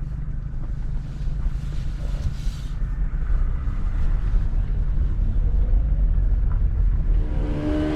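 Motorboat engine running steadily close by, churning the water to stir up the fish and raise their activity, with wind buffeting the microphone.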